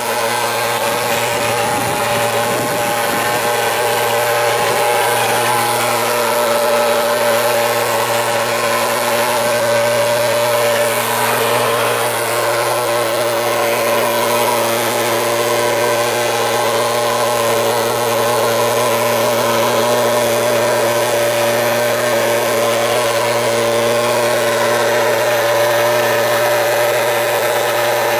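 Portable thermal fogging machine's pulse-jet engine running with a loud, steady, unbroken drone as it blows out insecticide fog against mosquitoes.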